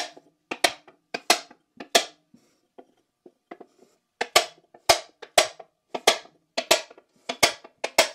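Brass hammer striking a punch against the factory steel knockout plug in the drum brake backing plate of a Chevy 10-bolt rear axle: sharp metallic blows, often in quick pairs, about two a second, with a pause of about two seconds in the middle. The plug holds fast and does not knock out.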